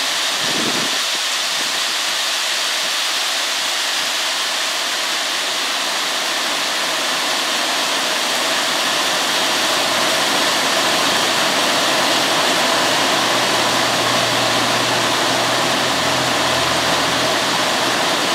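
Heavy downpour: rain pouring steadily onto a flooded yard, a dense, even hiss.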